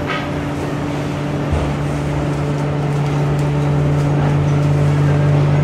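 Steady low hum of a veneer dryer's fans and motors running, with a single low thump about a second and a half in.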